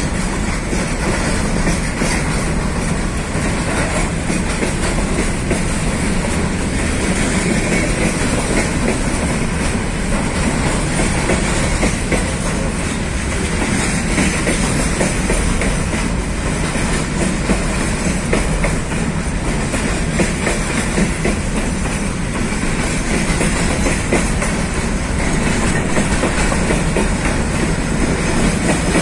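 Container freight train rolling past: a steady rumble of steel wheels on the rails, with the clickety-clack of wheels crossing rail joints.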